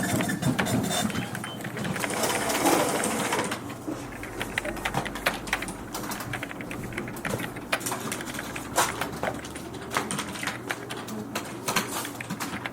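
Office ambience: irregular keyboard typing clicks, preceded for about the first three seconds by a denser run of office-machine and paper noise.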